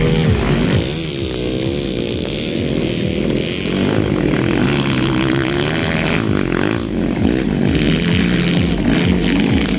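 Dirt bike engines revving, their pitch rising and falling as the throttle is opened and closed.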